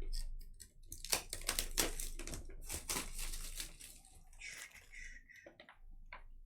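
Foil trading-card pack wrappers crinkling and cards rustling as they are handled, in a dense run of crisp rustles that thins out after about three and a half seconds.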